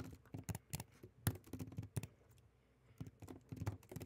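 Typing on a computer keyboard: a quick, irregular run of key clicks that pauses briefly past the middle, then starts again.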